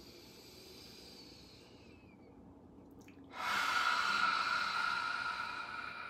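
Lion's breath: a faint breath in, then about three seconds in a long, loud breathy 'haaa' exhaled through the wide-open mouth with the tongue stuck out, slowly fading.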